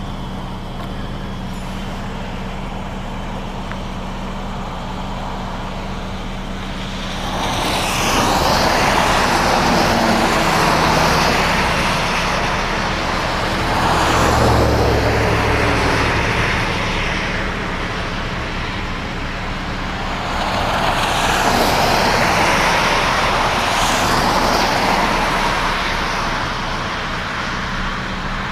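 Cars passing through an intersection on a wet road, their tyres hissing on the rain-soaked pavement in two long swells, about eight and twenty seconds in, with a deeper engine rumble in the middle of the first. A steady low hum runs underneath.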